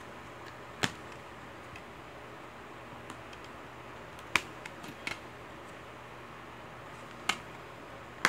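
Plastic DVD case being handled: sharp clicks as its clasp is snapped open and shut, one about a second in, two around four to five seconds, and one near the end, over a faint steady hiss.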